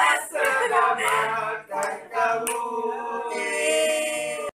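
A group of family voices, adults and children, singing together, ending on a long held note that cuts off abruptly.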